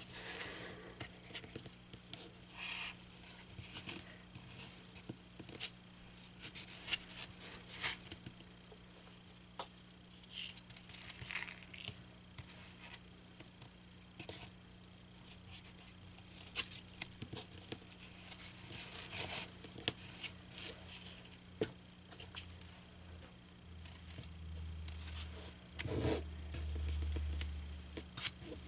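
Fabric and craft materials being handled and worked over a styrofoam board: irregular rustling, scraping and snipping strokes. A low hum comes in near the end.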